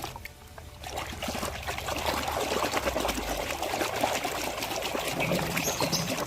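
Water pouring and trickling over a muddy toy as it is rinsed clean, building up about a second in and then running steadily.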